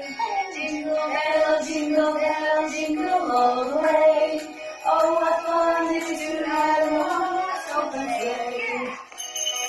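Two women singing a song together.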